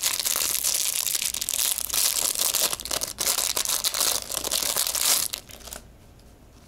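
Plastic packaging crinkling and rustling as small toy accessories are handled and unwrapped, stopping abruptly about five seconds in.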